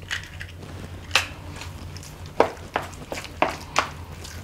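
White plastic spoon knocking and scraping against a plastic mixing bowl as an egg is stirred into mashed tofu: a couple of separate knocks, then a run of quick taps about three a second from the middle on.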